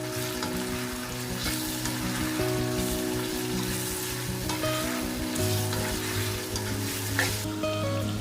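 Food sizzling as it fries in hot oil in a pan, the hiss easing off near the end, under background music with sustained notes.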